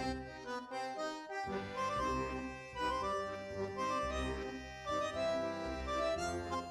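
Background music: a melody of held notes over a steady low beat.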